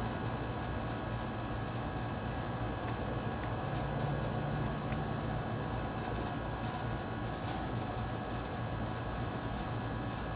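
Steady low rumble with a constant hum underneath and a few faint ticks.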